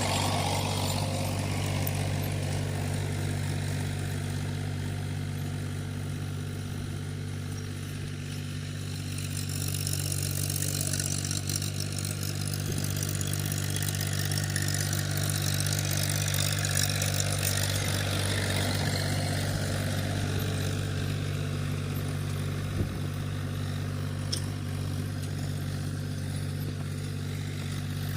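Tractor engine running steadily at an even speed, pulling a plough through a field.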